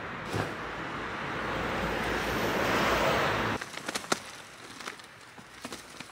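A broad rushing noise swells for about three and a half seconds and cuts off abruptly. Then come a few short wooden knocks and creaks as a rotten, weathered wooden raised-bed frame is tipped over.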